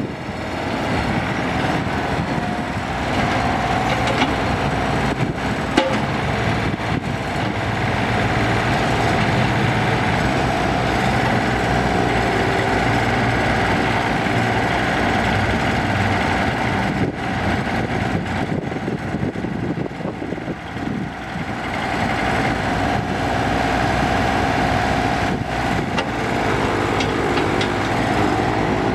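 Kobelco SK024 mini excavator's diesel engine running steadily while the hydraulics swing the machine and work the boom and bucket. A higher whine rises over the engine drone about three seconds in and again in the last several seconds.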